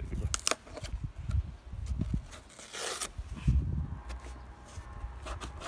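Rustling and a few light clicks as bone meal is shaken from a cardboard box onto potting soil, with a short hissing pour about three seconds in.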